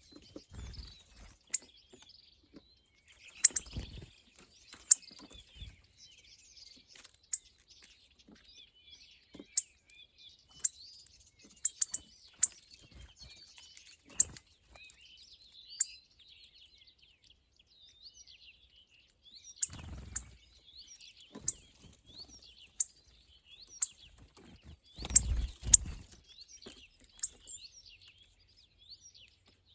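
Small birds chirping and twittering continuously, with many sharp clicks and a few dull thumps, the loudest about 25 seconds in.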